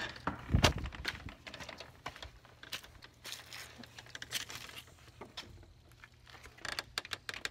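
Handling noise of a phone being carried: cloth rubbing against the microphone, scattered clicks and rustles, and one loud knock about half a second in.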